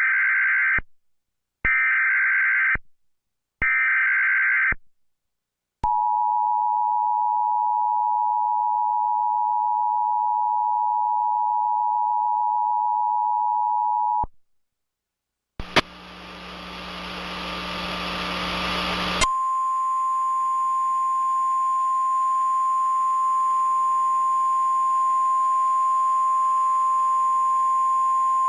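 Emergency Alert System tones: three short bursts of SAME header data, then the two-tone attention signal held for about eight seconds. After a short gap comes a few seconds of radio static, and then the single steady weather-radio warning alarm tone sounding over faint static.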